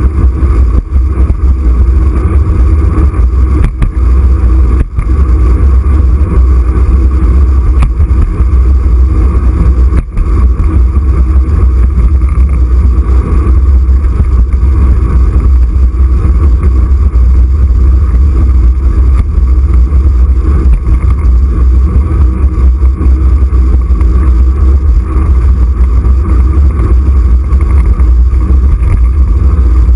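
Wind rushing over the microphone of a camera mounted on a moving bicycle, a loud, steady rumble with a few brief dips.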